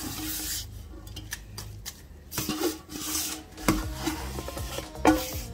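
A gloved hand scraping and rubbing marinated oxtail pieces out of a metal mixing bowl into a plastic container, with stretches of wet rubbing and scraping. The metal bowl knocks against the container several times, most sharply near the end.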